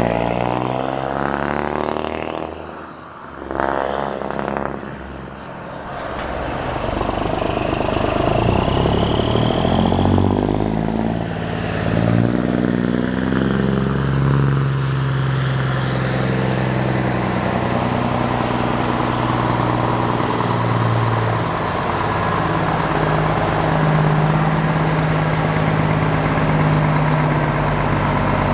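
Scania S500 truck's engine running through an open, unsilenced exhaust pipe as the truck drives close past. The note drops as it goes by in the first few seconds, rises again as it pulls on a few seconds later, and then settles into a steady low run.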